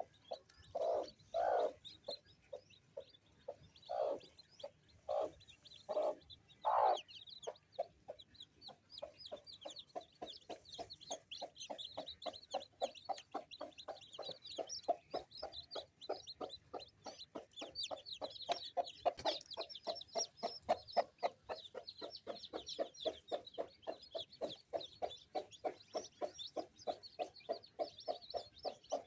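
Broody mother hen clucking: a few loud separate clucks in the first seven seconds, then a fast, even run of low clucks. Newly hatched chicks peep high and thin throughout.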